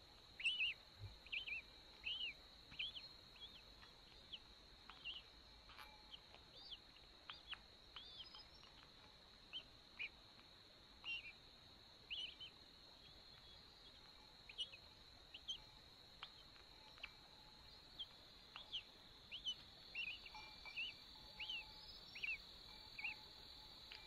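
Short, high bird chirps, often one or two a second and thicker near the start and again towards the end, over a steady high insect drone.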